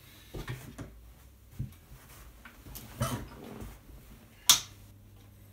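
A few soft knocks and rustles of handling, then one sharp click of the Matchless HC-30 amplifier head's toggle switch being flipped on about four and a half seconds in. After the click the amp gives a steady low hum.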